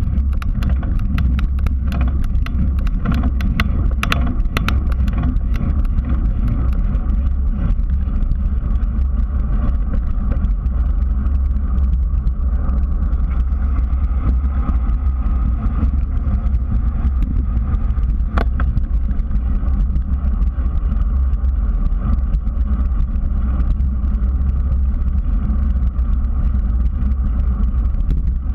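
Wind buffeting on a bike-mounted GoPro while cycling, a steady low rumble mixed with tyre and frame noise on the pavement. A run of sharp rattling clicks comes in the first few seconds, and a single click about 18 seconds in.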